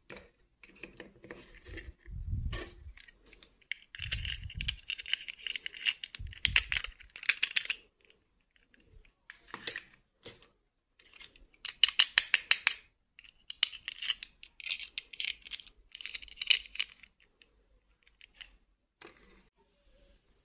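Hands handling small plastic dolls and their snap-on plastic gowns: irregular rustling and plastic clicks and rattles, with a few dull thumps in the first several seconds and a quick run of sharp clicks about twelve seconds in.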